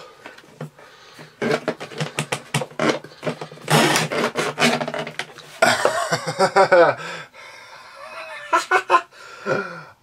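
A man laughing in disbelief: long runs of breathy, rapid laughter broken by short drawn-out exclamations.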